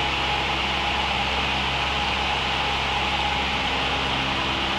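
Light single-engine plane's carbureted piston engine and propeller running steadily at approach power, with rushing airflow, heard inside the cabin.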